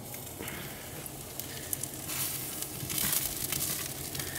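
Chicken sizzling on the hot grate of a kamado charcoal grill as jerk marinade is brushed onto it, with small scattered crackles. The sizzle grows louder about halfway through.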